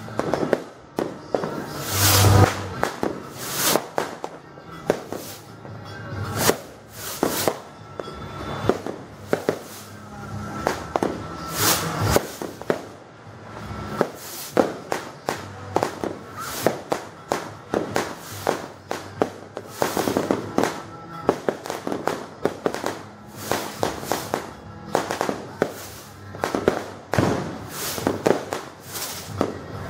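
Fireworks and firecrackers going off in rapid, irregular succession, many bangs a second with no letup, the loudest bang about two seconds in.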